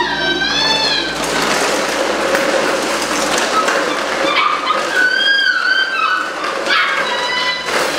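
Belgian Malinois puppies whining: three wavering cries, at the start, about five seconds in and near the end, over a steady loud rustling and scraping noise.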